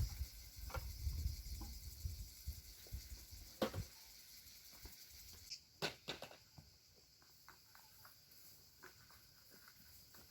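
A low rumble dies away over the first few seconds, with scattered faint clicks and knocks over a steady faint high hiss.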